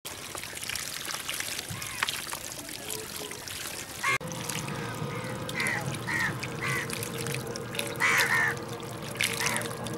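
Water pouring steadily through a cut in a mud bank into a woven basket trap packed with small puti fish. Over it, from about four seconds in, a run of short pitched calls, loudest near the end.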